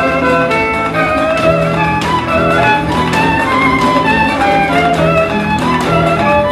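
Violin playing a melody over a backing track with a steady bass line and a regular beat.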